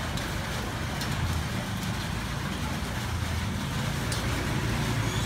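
Steady low rumble and hiss of street traffic, with a couple of faint light clicks, about a second in and again about four seconds in.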